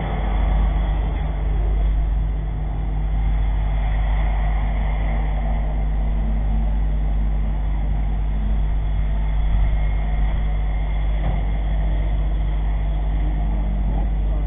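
A motor vehicle's engine running steadily with a low rumble and even hum, without marked revving.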